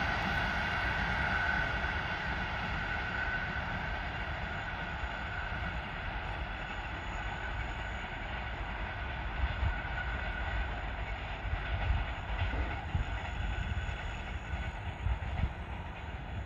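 ChS7 electric passenger locomotive and its train pulling away: a steady whine of several tones and the low rumble of wheels on rail slowly fade as it recedes, with a few irregular low thumps in the second half.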